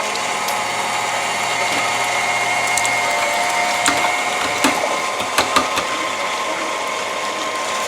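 KitchenAid stand mixer running on speed 4 with its metal food grinder attachment, grinding slices of partially frozen beef: a steady motor whine, with a few sharp clicks about halfway through.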